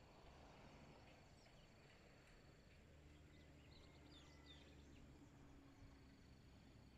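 Near silence: faint outdoor ambience with a few faint bird chirps in the middle, and a faint steady high tone that drops out and comes back.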